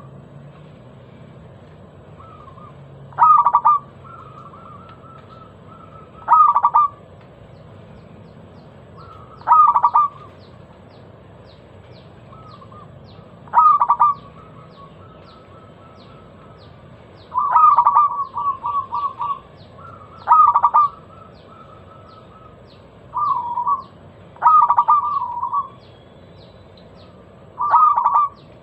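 Zebra dove (perkutut) cooing: about ten short, loud phrases, one every three seconds or so, several ending in a quick rolling run of notes. It is a lure song meant to set other zebra doves singing.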